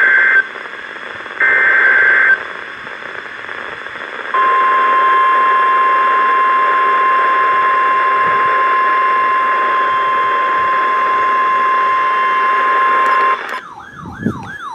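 NOAA Weather Radio Emergency Alert System tones received over a hissy radio. First come the end of one SAME digital header burst and then a last one, each a short, harsh, two-pitched data screech. After a two-second pause of static, the steady single-pitch 1050 Hz warning alarm tone sounds for about nine seconds and cuts off. A warbling, siren-like tone starts near the end.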